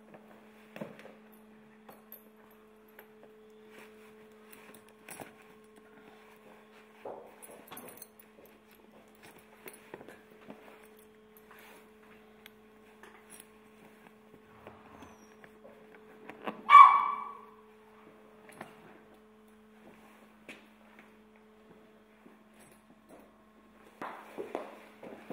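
Quiet sounds of a horse being saddled: small clicks and knocks of leather straps and buckles over a steady low hum. About two-thirds of the way through comes one loud, short bark-like call, and near the end hooves begin to clop on the floor.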